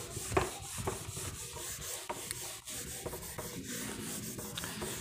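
Soft rubbing and scraping with a few light clicks scattered through it.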